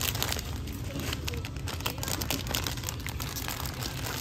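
Plastic packaging crinkling as it is handled, a dense run of quick, irregular crackles.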